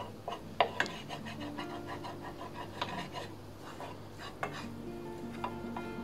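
Wooden spoon scraping and knocking irregularly against a stainless steel pan as thick choux dough is stirred and dried over the heat, with background music.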